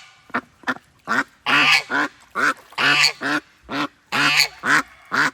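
Domestic geese honking and ducks quacking in a rapid run of short calls, about two or three a second.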